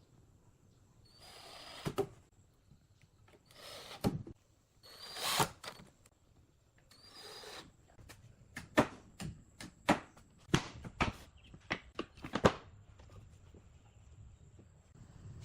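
Woodworking power tool run in four short bursts of about half a second each, each ending in a sharp knock. A quick run of sharp knocks and clicks follows on the wood, the loudest sounds here.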